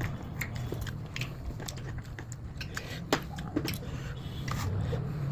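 Someone biting and chewing crisp fruit: scattered crunchy clicks, the sharpest about three seconds in.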